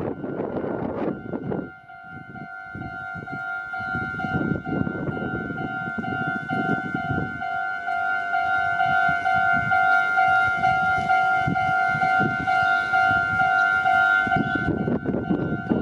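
Japanese railway level crossing's electronic warning bell ringing, a steady rapidly repeating two-tone ding. A train's rumble covers it at the start and comes back near the end.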